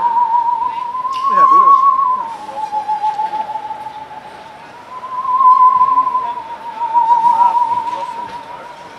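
A high whistled note with a fast vibrato, held without a break. It drops a little in pitch about two seconds in and comes back up around five seconds. About a second and a half in, faint sliding vocal sounds from other voices pass underneath.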